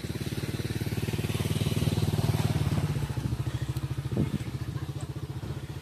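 A small engine running with a fast, even putter, passing close by: it gets louder over the first two seconds and then fades away.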